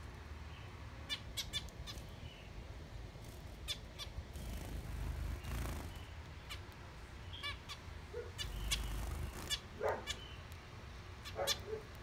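Zebra finches giving short, sharp calls, scattered singly and in quick pairs, over a low steady hum.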